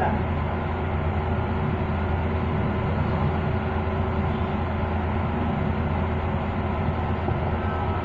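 15 kg commercial front-loading washer-extractor running its high-speed extract spin: a steady motor hum and drum rumble with no break.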